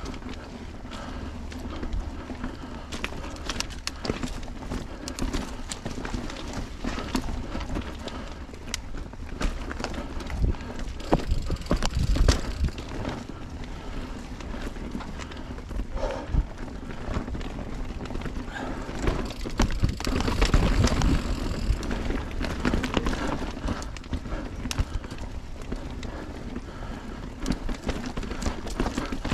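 Mountain bike rolling over a dirt and rock trail: tyres crunching, with the frame and chain rattling and knocking over bumps and wind rumbling on the microphone.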